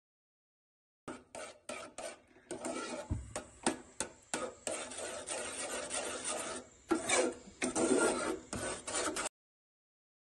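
Slotted metal spoon scraping and stirring thick tomato sauce in a metal saucepan: a run of rasping strokes that starts about a second in and stops shortly before the end.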